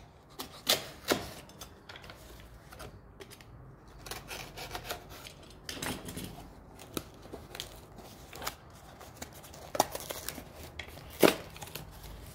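Packaging of an HO-scale model building being opened and handled by hand: scattered sharp taps and clicks over low rustling, with a longer rustle about ten seconds in.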